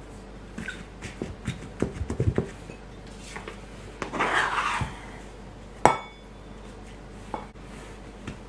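Bread dough being punched down in a stainless steel bowl, a run of knocks and thumps, then a plastic dough scraper scraping around the inside of the steel bowl. About six seconds in the steel bowl gives one sharp clang that rings briefly.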